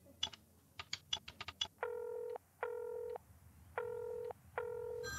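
Desk telephone keypad buttons clicking as a number is dialled, about eight quick presses, followed by the ringing tone heard down the line: two double rings.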